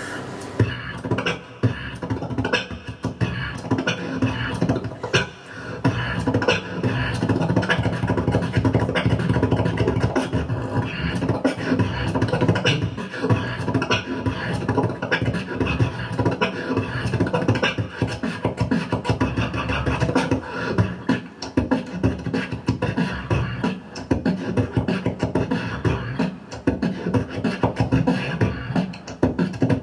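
Solo beatboxing into a handheld microphone: a fast, dense run of vocal kick, snare and hi-hat sounds over a sustained low bass tone.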